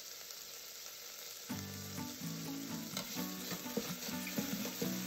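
Diced beef sizzling in hot oil in the inner pot of a Pressure King Pro electric pressure cooker, browning on its sauté setting. The pieces are turned with metal tongs that click against the pot now and then.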